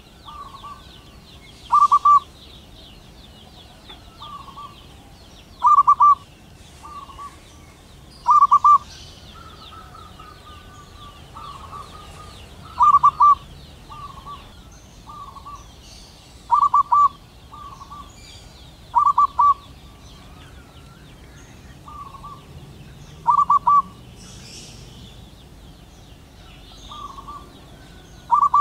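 Zebra dove calling: short, rapid staccato coos repeated every two to four seconds, some loud and some softer in between. A steady high buzz runs behind them.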